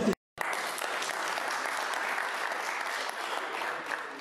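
Applause from a crowd of many hands, steady after a brief gap of silence at the start, beginning to fade near the end.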